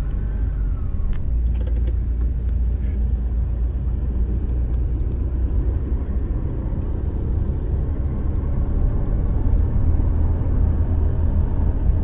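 Steady low rumble of a car being driven, heard from inside the cabin: engine and road noise.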